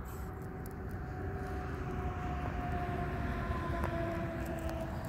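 Steady low rumble of a moving road vehicle, with a faint whine that falls slowly in pitch.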